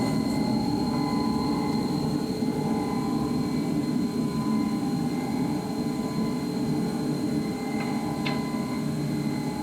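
Manual transmission gear oil draining from the open drain hole into a drain pan, a steady pouring and splashing stream that eases slightly near the end.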